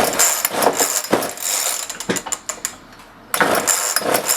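Homelite 3514C chainsaw being pulled over on its recoil starter, a clattering rattle that starts suddenly, eases off after about two seconds and comes back a second later, without the engine catching. The engine is flooded.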